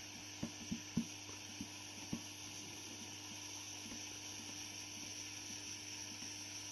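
Soldering iron tip melting plastic: a few faint crackles and pops in the first couple of seconds, then only a steady low hum and hiss.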